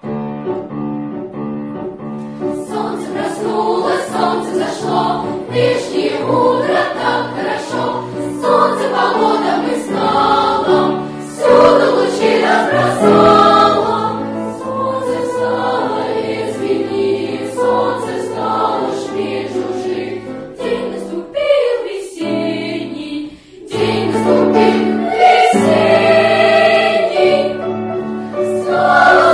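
A children's choir singing in several parts, starting right at the beginning, with a brief break about three-quarters of the way through before the voices come back in.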